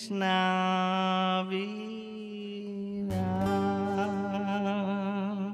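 Man singing long held notes, the second with a wavering vibrato, over a strummed acoustic guitar, closing out a country song; the music stops near the end.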